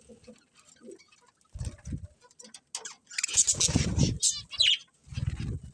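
Budgerigars chirping and chattering in short, quick calls, thickest about three to four and a half seconds in, with low rumbling bumps underneath at intervals.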